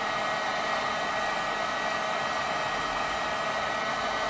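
Handheld hot-air blower running steadily, a blowing rush with a faint steady whine in it, heating a phone to soften the glue under the screen.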